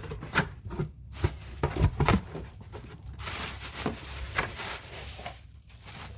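Packaging being handled by hand: several sharp taps and knocks in the first two seconds, then about two seconds of steady rustling of paper or wrapping.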